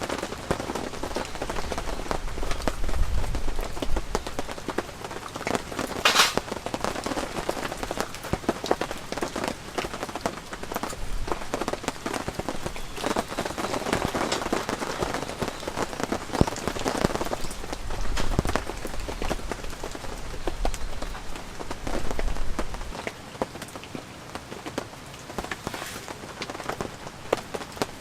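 Heavy rain drumming on an all-cotton tent canopy, with many separate drop ticks. There is one sharp snap about six seconds in, and the sound gets quieter about three-quarters of the way through.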